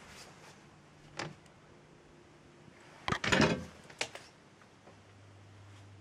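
Handling knocks and a short scraping rattle, loudest in a cluster about three seconds in, from a handheld field meter and camera being moved about. Near the end a faint steady low hum starts up, the kind of low house hum the uploader is recording.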